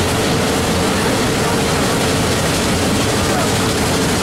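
Steam train on the move, heard from an open-sided passenger car: a loud, steady rumble of the cars on the track together with the geared logging locomotive working ahead.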